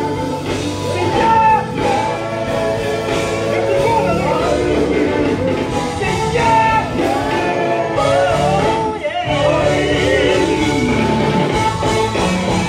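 Gospel group singing live in church with instrumental accompaniment, the voices gliding up and down over steady low bass notes.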